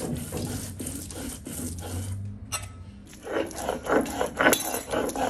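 Hand-held grinding stone rubbed back and forth over a stone slab (shil-nora), grinding a wet herb paste for bhorta, in rhythmic rasping strokes. The strokes pause for about a second near the middle, then resume louder.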